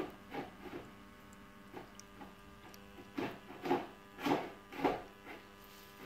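Neff dishwasher running with a steady electrical hum. A brief surge comes right at the start, then four louder swelling surges about half a second apart in the second half.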